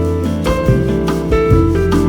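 Instrumental bossa nova: plucked guitar and keyboard chords over a bass line, with a light, steady beat.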